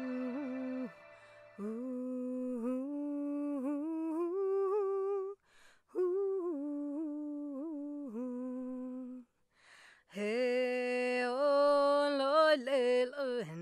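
Soundtrack music: a wordless voice hums a slow melody in long held notes that bend and waver, in phrases with short breaks. Near the end it grows louder and fuller.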